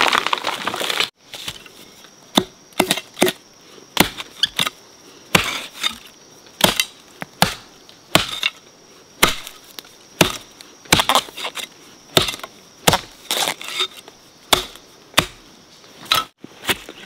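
A long series of sharp chopping strikes, roughly one every half second to a second, as from a hand tool hitting wood or ground. A faint steady high tone runs behind them.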